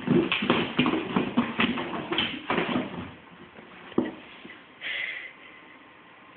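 Kittens scrabbling at and knocking about a cardboard shoebox and lid on a hardwood floor: a rapid run of scratching, rattling and paw taps for about three seconds, then a single sharp knock about four seconds in. A brief higher-pitched sound follows near five seconds.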